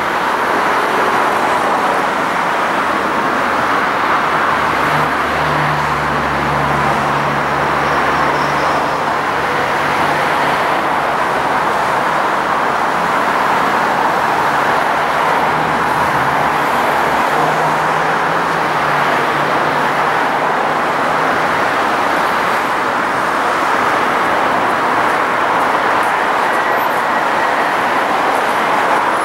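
Steady road traffic noise, with a low hum from about five to twenty seconds in while a tram draws up and stands at the platform.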